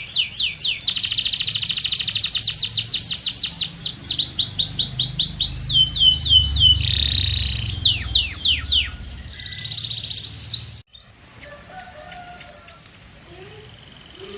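Canary singing in quick runs of repeated notes: a series of falling whistled notes, a fast dense trill, then more falling notes. The song cuts off abruptly about eleven seconds in, leaving only fainter sounds.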